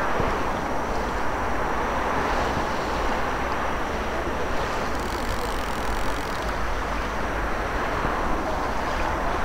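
Steady wind on the microphone over open water: a constant rushing hiss with a low rumble and no distinct events.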